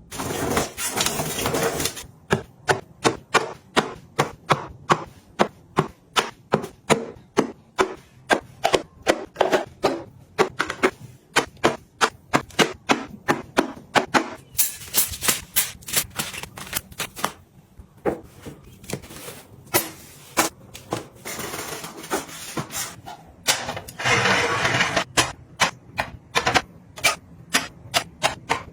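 Objects handled and set down in quick succession: a long run of sharp taps and clicks, about two a second, broken by short rustling stretches at the start and near the end.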